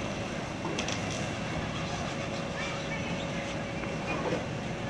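Steady low rumble of a fishing boat's diesel engine running at the quay, with a constant hum over it and a few light clicks about a second in.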